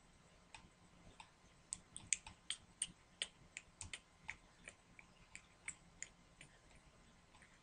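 A quick, uneven run of faint clicks, about four a second, starting about two seconds in and thinning out near the end.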